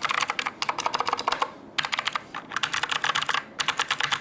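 Fast typing on a Fantech Atom 87 tenkeyless mechanical keyboard with clicky blue switches: quick runs of key clicks, broken by two short pauses, one about halfway and one near the end.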